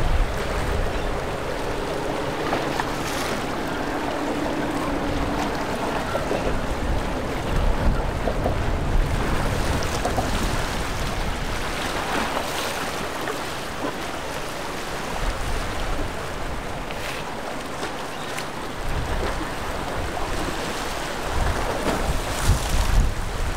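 Sea water rushing and splashing around concrete pier pilings and lapping against jetty rocks. Wind buffets the microphone in gusts, heaviest near the end.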